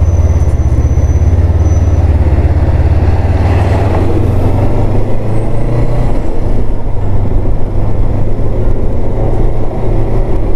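Motorcycle engine running steadily with a deep, even pulse, and a brief rush of noise about four seconds in.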